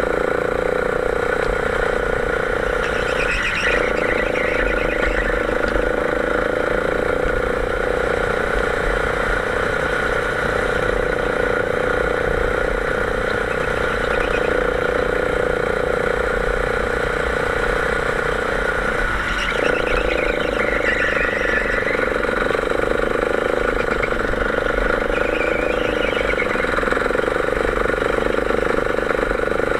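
Kart engine running steadily at high revs, heard from on board the kart. The engine note briefly drops twice, about sixteen seconds apart.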